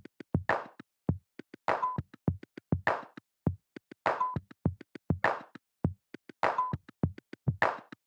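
Background music: an electronic beat of drum-machine kick, snare and hi-hat hits repeating evenly, with a short synth blip in some bars.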